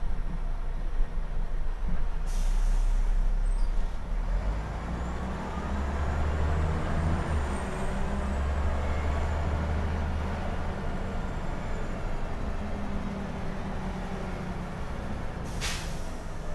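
Scania L94IB city bus's diesel engine running under way, heard from inside the passenger cabin, with a deeper, stronger drone from about four seconds in. Two short sharp hisses of air, like air-brake releases, come about two seconds in and again near the end.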